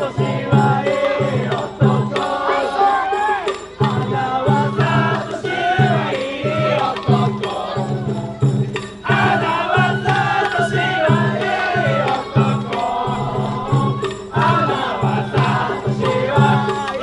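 Festival float hayashi music: a steady drum beat under a wavering melody and voices of the crowd.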